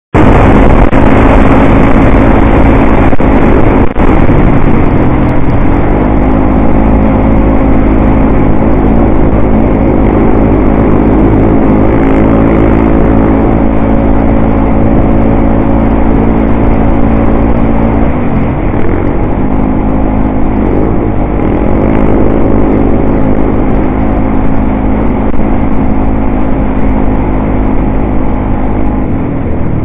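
ATV engine running under way, heard from the rider's seat: a loud, steady drone over a rush of noise, its pitch shifting a few times (about 5 seconds in and again past the middle) as the throttle changes.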